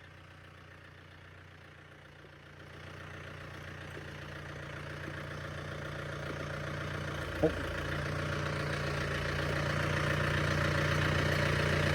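John Deere 4600 compact tractor's diesel engine running, growing steadily louder as the tractor comes ahead with a loaded fridge, with one brief sharp sound about seven seconds in.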